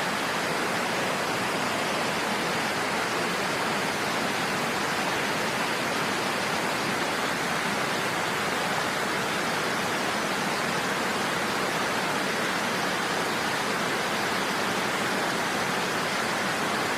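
Steady, unbroken rushing roar of a large waterfall: water crashing down without pause or change.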